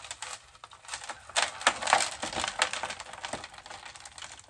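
Thin plastic nursery pot crackling as it is squeezed and pulled off a philodendron's root ball, with chunks of aroid potting mix rattling and pattering into a plastic tray. The clatter is busiest in the middle.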